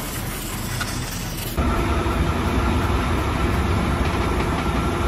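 Stick-welding arc crackling and hissing. About a second and a half in it cuts off suddenly to a louder steady engine-like running hum.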